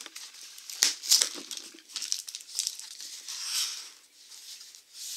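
Cardboard box and clear packing tape being handled: irregular crackling and crinkling, with the sharpest crackles about a second in and softer rustling later.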